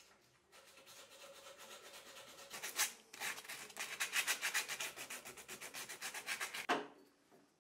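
Sandpaper rubbed by hand back and forth along the cane handle of a cricket bat, in quick, even strokes several times a second. It starts about half a second in, breaks off briefly near three seconds, comes back louder and stops shortly before the end.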